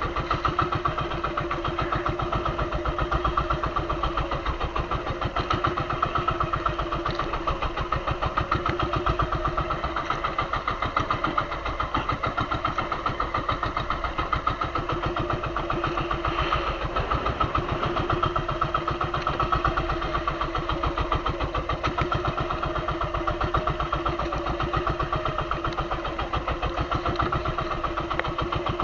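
Boat engine running steadily at an even speed, with a fast, regular beat.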